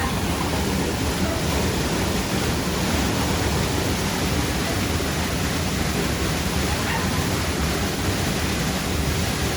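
Waterfall rushing steadily, an even hiss of falling water with no let-up.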